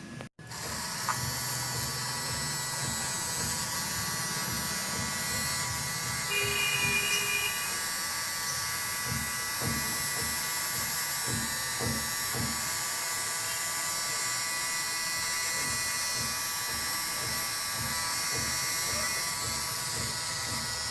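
Small electric motor of a homemade mini vacuum cleaner running steadily with a high whine and hiss; it starts about half a second in. A few light low knocks come midway.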